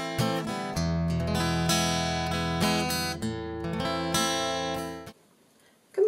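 Intro music on acoustic guitar, plucked and strummed chords, cutting off about five seconds in.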